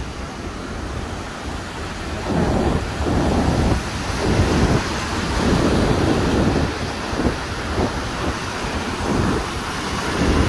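Ocean surf washing over a flat rock shelf, with wind buffeting the microphone. From about two seconds in, irregular low rumbles of wind come every second or so on top of the steady rush of the waves.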